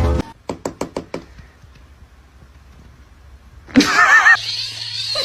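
A quick run of about six knocks, then quiet, then a cat's loud, wavering yowl starts near the end and carries on.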